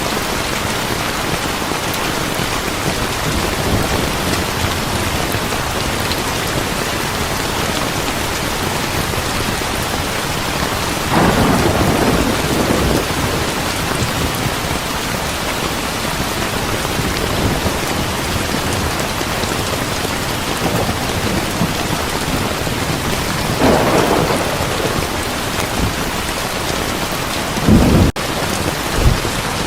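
Steady heavy rain, with rolls of thunder rising over it three times: about a third of the way in, about four-fifths in, and a sharper one near the end.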